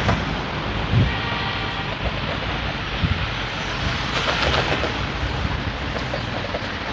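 CAF light-rail tram rolling slowly up to the platform, with a faint steady whine in the first couple of seconds. Wind rumble on the microphone runs through it, with a couple of dull knocks.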